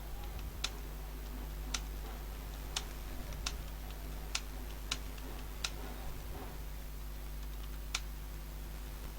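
Computer keyboard keystrokes: single sharp key clicks at an uneven pace of about one a second, with a longer gap near the end, over a steady low electrical hum.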